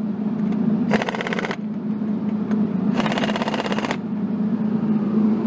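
Pneumatic impact wrench hammering lug nuts tight on a Kawasaki Mule's steel wheel: a short rattling burst about a second in and a longer one about three seconds in, over a steady low hum.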